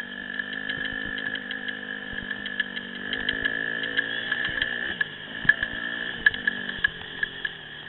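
Dirt bike engine, a Yamaha WR250F single-cylinder four-stroke, running as it rides a trail, its revs dipping and rising about midway. Frequent sharp clicks and knocks sound over it, along with a steady high-pitched whine.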